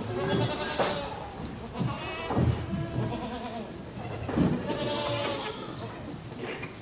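A flock of sheep bleating, several animals calling over one another in wavering cries.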